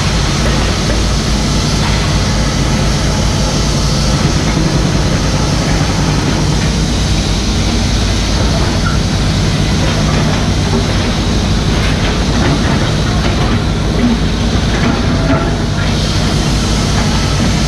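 Mini excavator's diesel engine running steadily under load, with hydraulic and working noise over it.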